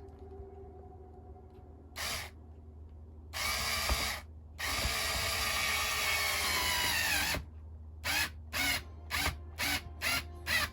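Electric drill running in bursts: one short burst, then a run of a few seconds whose pitch drops as it winds down, then a string of quick short trigger pulls near the end.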